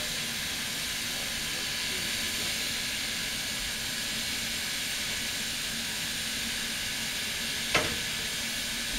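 Steady hiss of steam escaping from New Zealand Railways Ja class steam locomotive 1275 as it stands on a turntable. A single sharp knock sounds near the end.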